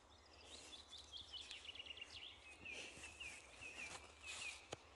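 A small songbird singing faintly, a run of quick chirping notes repeated over several seconds, with a few soft rustling bursts and a single sharp click near the end.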